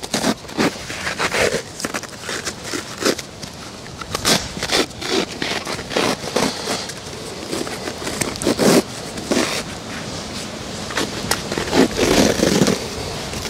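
Self-adhesive cohesive bandage (Allflex wrap) crackling in quick, irregular bursts of small crackles as it is pulled off the roll under tension and wound around a horse's padded hoof for a pressure bandage.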